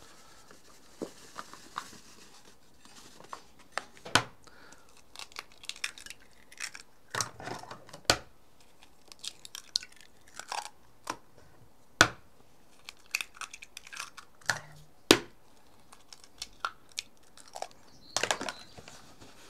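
Cornmeal pouring with a soft hiss into a glass dish, then a string of sharp clicks and crackles as eggs are cracked and eggshell taps against a glass bowl.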